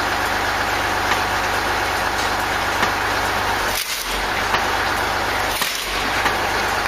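Homemade rotary wood-cutting machine, a spinning steel wheel drum on a drive hub, running with a loud steady mechanical noise. The noise dips briefly twice, about four and six seconds in, as wood is pushed against the spinning drum.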